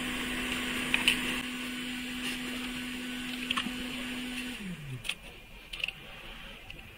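A small electric blower motor runs with a steady hum and airy hiss, then is switched off about four and a half seconds in, its hum falling in pitch as it spins down. A few light clicks of handling come through.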